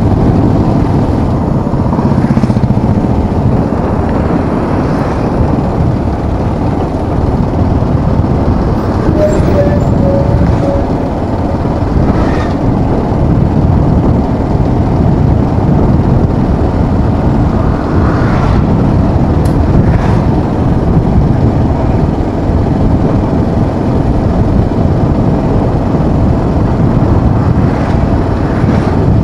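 A moving motorcycle's engine and road noise with wind rushing over the bike-mounted microphone, a loud, steady roar throughout.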